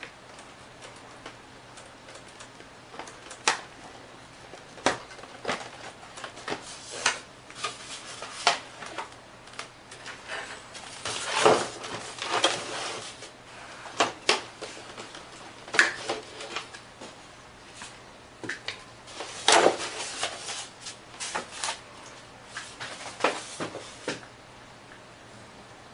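Styrofoam packing tray and clear plastic cover being handled: irregular clicks, knocks and scraping, with two busier stretches of rubbing and handling partway through and again past the middle.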